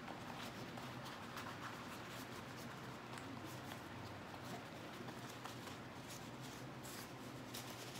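Banana leaves rustling and crinkling faintly as they are folded and rolled by hand into a wrapper, in many small irregular crackles.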